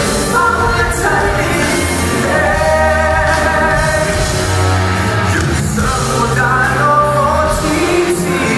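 A male singer singing a pop song live into a handheld microphone over band accompaniment with a steady bass line.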